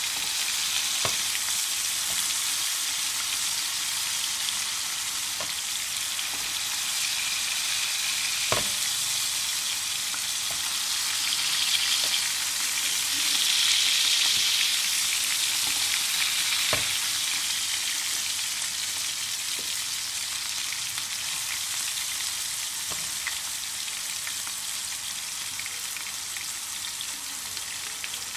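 Chapli kababs shallow-frying in oil in a flat pan, a steady sizzle that swells for a few seconds around the middle. A few sharp clicks as the metal slotted spatula touches the pan.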